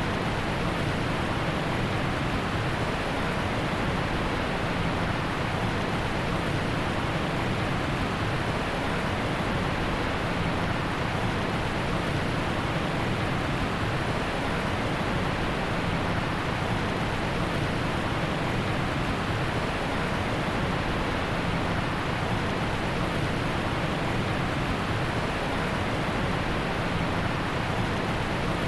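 Heavy rain falling steadily, a dense even hiss with no separate drops or thunder standing out.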